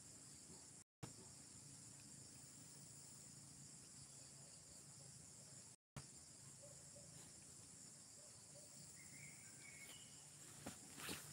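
Faint, steady high-pitched chirring of insects in a garden. The sound cuts out completely twice for a split second.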